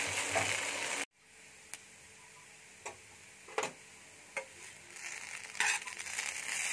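Maggi noodles and egg stir-frying in a pan on high flame, sizzling; about a second in the sizzle cuts off abruptly, leaving a few isolated light taps of the spatula against the pan, and the sizzling builds back up near the end.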